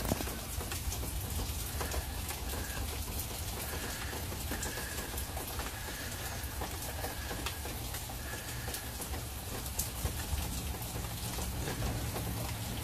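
Steady rain falling, with scattered drops tapping on surfaces.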